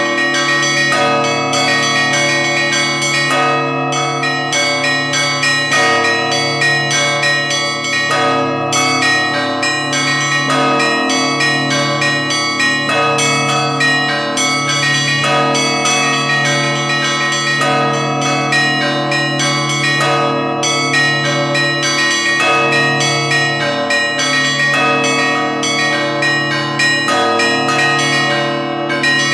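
Russian church bells ringing a full peal. Small bells are struck in quick, continuous patterns over a deep bell that sounds about every two seconds.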